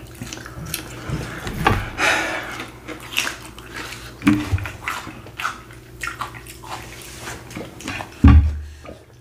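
Close-miked wet mouth noises of eating: chewing, lip smacks and clicks, coming irregularly. A brief low thump near the end is the loudest sound.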